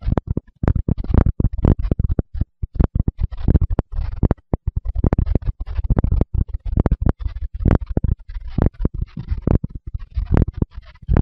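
A fast heartbeat picked up by a microphone pressed against the chest: deep paired thumps, about two beats a second, with a scratchy rustle between the beats.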